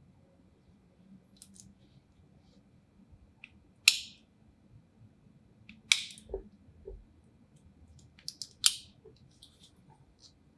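Push-button adjustable deployant buckle of a Breitling strap being worked down a notch at a time: three sharp metal clicks about two seconds apart, with fainter ticks and small knocks between them.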